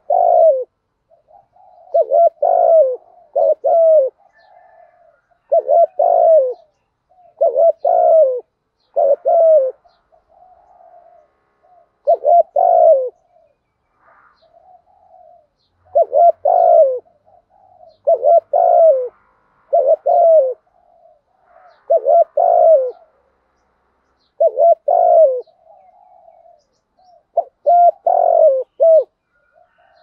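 Spotted dove cooing over and over: a short phrase of a few coos every two seconds or so, about a dozen phrases in all, with softer coos between them.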